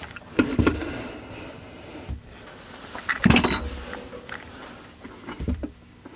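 Knocks and metallic clattering of hard objects being handled and shifted, in several short bursts, the loudest about three seconds in.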